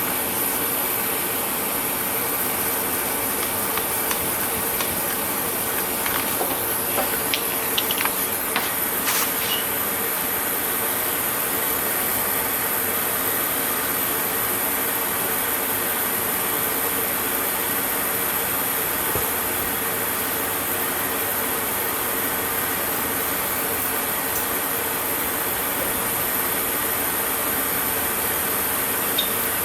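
Steady whirring of a small electric motor with a constant high whine, with a few light ticks between about six and nine seconds in.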